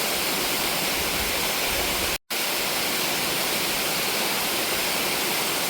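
Waterfall pouring over a rock face: a steady, loud rush of falling water. It cuts out for a split second about two seconds in, then resumes unchanged.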